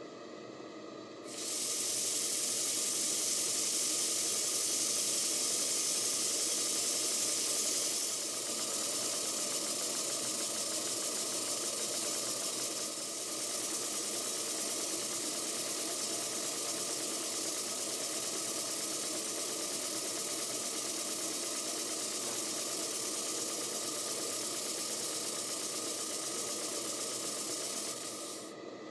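Live steam hissing steadily through a Stuart twin launch model steam engine on its steam test. The steam is turned on about a second in, the hiss eases a little around eight seconds, and it is shut off suddenly near the end.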